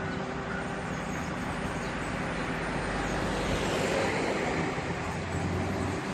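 Fire truck's engine running steadily amid street traffic noise, growing a little louder in the middle.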